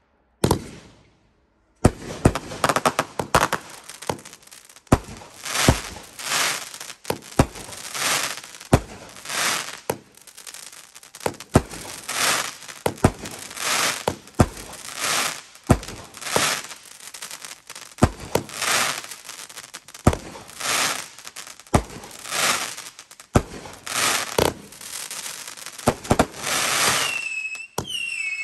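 Consumer fireworks going off in quick succession: a steady run of sharp shots, each followed by a hissing, crackling burst. Near the end, whistling tails with a wavering pitch join in.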